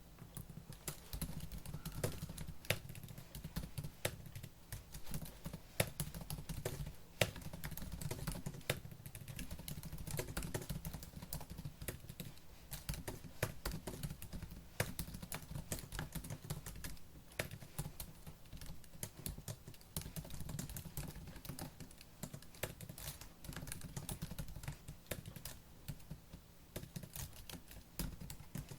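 Fast, continuous typing on a laptop keyboard: a dense, irregular stream of key clicks with soft low thuds under them.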